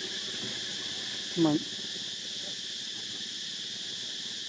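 Steady high-pitched drone of insects. One short, low, falling call, about a second and a half in, is the loudest sound.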